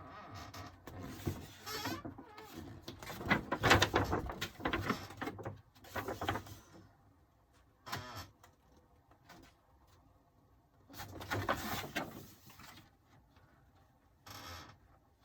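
A large paper poster rustling and crinkling as it is handled and turned over. The sound comes in several short bouts with quiet gaps between them.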